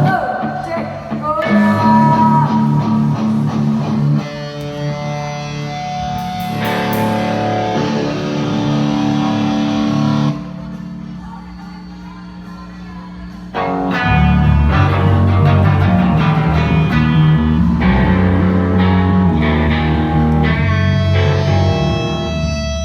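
Electric guitar playing sustained notes and chords through an amplifier during a band sound check. It drops to a quieter stretch about ten seconds in, then the band comes back louder with heavy low bass notes about fourteen seconds in.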